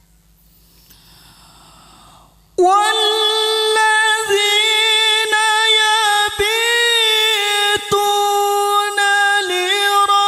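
Melodic Qur'an recitation (qiraah) by a solo voice. After a soft intake of breath, the voice comes in suddenly about two and a half seconds in and holds long, ornamented high notes with wavering pitch.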